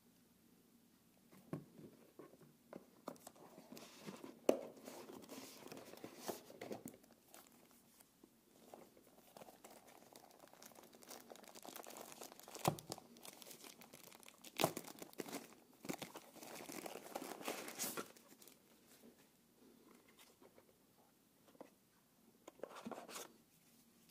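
Packaging being unwrapped by hand: a thin wrapper crinkling and rustling in bursts, with a few sharp clicks and knocks in between.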